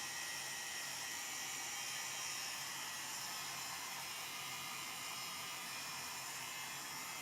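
Heat gun blowing steadily on a low heat setting, shrinking plastic shrink-wrap film down.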